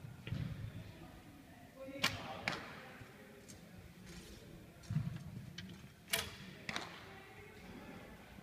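Recurve bows being shot: sharp cracks of bowstrings releasing and arrows striking the target bosses, in two pairs about half a second apart, around two and six seconds in. Duller low thumps fall between them.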